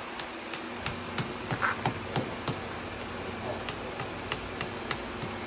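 Hand hammer striking red-hot steel on an anvil, about three blows a second with a pause of about a second midway, hand-forging the tip of a knife blade. A steady low hum runs underneath.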